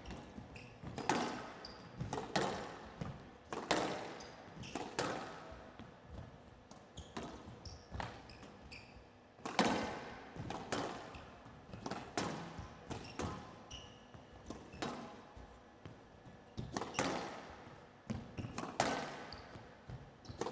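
Squash rally: the ball cracks off the rackets and walls about once a second, each hit echoing briefly around the hall.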